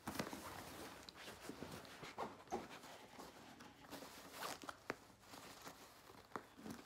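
Faint handling of an overstuffed backpack: fabric rustling and contents being pressed down, with scattered small knocks and short tugs at a zipper that is too full to close.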